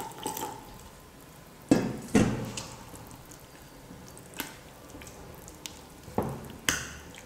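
Silicone spatula stirring milk into thick chocolate biscuit batter in a glass bowl: soft wet squishing, with a few sharp knocks of the spatula against the glass, two about two seconds in and two more near the end.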